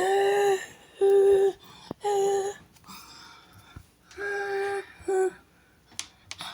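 Fire alarm horn (System Sensor SpectrAlert) sounding in the temporal-three evacuation pattern. Three half-second steady tones come about a second apart, then a pause, then two more, the last cut short.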